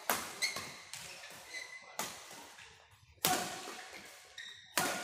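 Badminton rackets striking a shuttlecock during a rally: a string of sharp cracks echoing in a large hall, with a lull about three seconds in. Short high squeaks of shoes on the synthetic court mat come between the hits.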